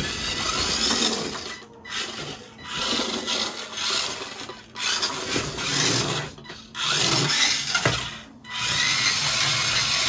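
Remote-control model HMT 5911 tractor's electric drive motor and gears whirring as it drives, in several runs with short breaks as the throttle is worked. It is being test-driven in high gear, held back from full throttle.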